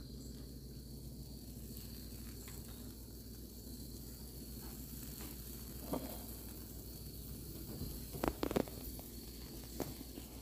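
Steady low hiss of a Blackstone gas griddle's burners running under tortillas, with a few light knocks about six and eight seconds in.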